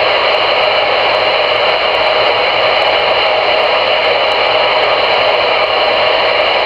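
CRE 8900 CB radio on channel 22 putting out a steady static hiss through its speaker, with no voice coming through.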